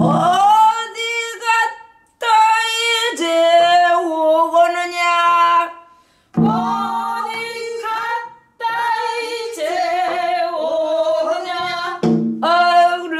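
A woman singing pansori solo in a full, open-throated voice with wide vibrato. She holds long phrases, with brief breaths between them.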